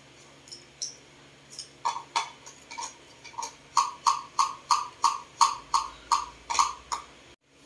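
Paintbrush dabbing poster paint onto a leaf laid on paper: a series of light taps, a few at first, then a steady run of about three a second.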